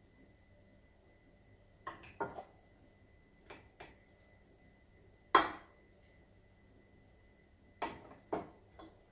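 A kitchen utensil knocking and scraping against a stainless steel pot and a bowl as noodles and greens are lifted out, in scattered clinks grouped in twos and threes. The sharpest knock comes about five seconds in.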